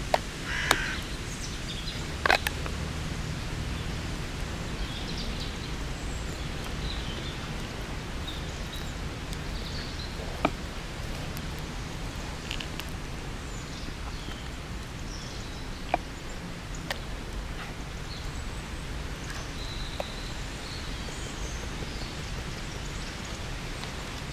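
Steady outdoor forest background noise with faint bird calls, broken by a handful of sharp single crackles from a small wood fire burning in a metal stove.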